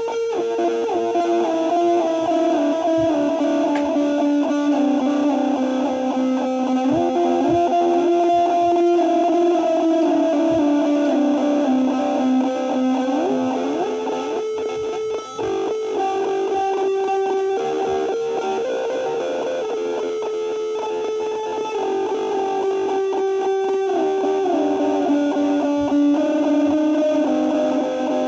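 Ibanez GIO seven-string electric guitar played through an Orange Crush 12 combo amp with a Donner Wave delay pedal. Long, held notes and chords overlap one another, with smooth glides from one pitch to the next.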